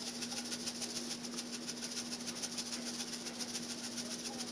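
Dried parsley shaken from a spice shaker jar: a quick, even run of light rattling shakes that stops near the end.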